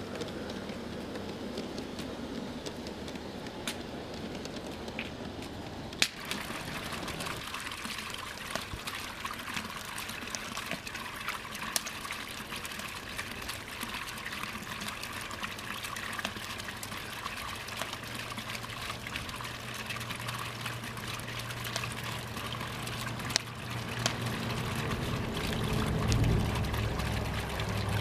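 Water trickling and splashing steadily from a small garden-pond fountain. A low steady hum comes in later and grows louder over the last few seconds.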